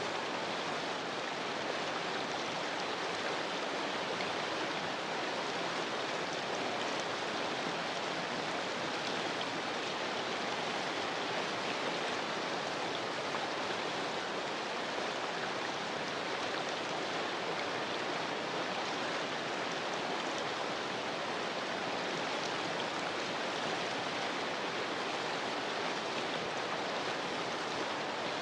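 Steady rainfall, an even hiss that holds level throughout with no thunder or single drops standing out.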